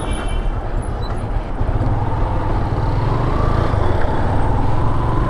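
Motorcycle engine running under way, with heavy wind and road noise; the engine note rises slowly in the second half.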